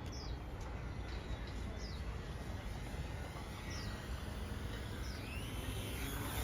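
A small bird calling in short high chirps that fall in pitch, about five of them spaced a second or two apart, over a steady low outdoor rumble.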